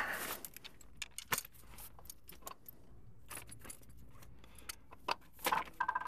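Hand tools clinking and rattling inside a soft-sided tool bag as a hand rummages through it: scattered light metallic clicks, with a few sharper knocks about a second in and a quick cluster near the end.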